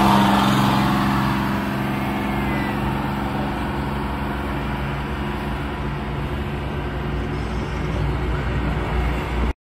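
Diesel engine of a vintage General Motors transit bus pulling away. Its steady drone is loudest at first and fades as the bus drives off, then cuts off suddenly near the end.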